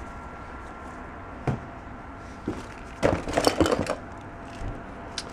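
Small objects knocking and clattering as a box of odds and ends is rummaged through by hand: a couple of single knocks, then a burst of clatter about three seconds in.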